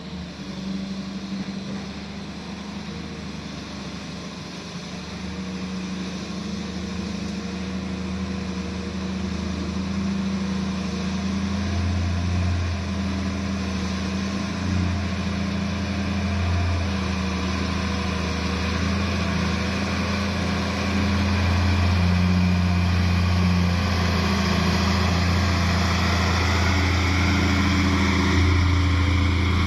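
Diesel engine of a heavy work vehicle running steadily, with a deep hum that slowly gets louder.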